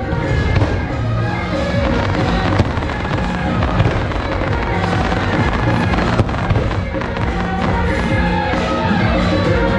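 Dense, continuous firecracker crackle from an electronic firecracker rig, with a few sharper cracks standing out, mixed with loud music.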